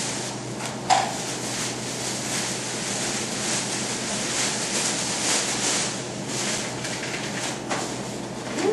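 Large black plastic garbage bag rustling and crinkling as it is handled and tied, with one sharp knock about a second in.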